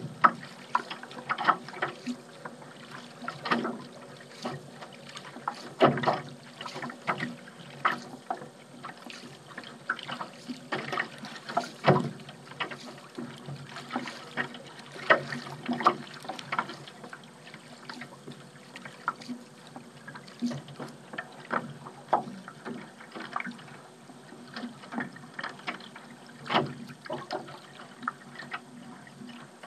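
Paddle strokes in the water: irregular splashes and drips, the strongest about six and twelve seconds in.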